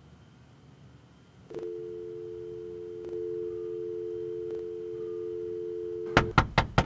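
Telephone dial tone, two steady tones held together, starts about a second and a half in. Near the end a quick run of sharp knocks of a fist on the car window cuts across it, and the tone stops.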